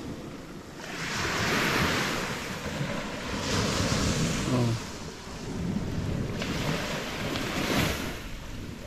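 Waves washing onto the shore, the noise swelling and ebbing several times, with wind buffeting the microphone.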